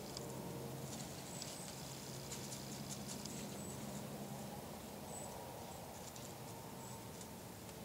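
Faint rustling and crackling in dry leaf litter as a white-tailed doe noses through the leaves feeding, with a few short, faint high chirps.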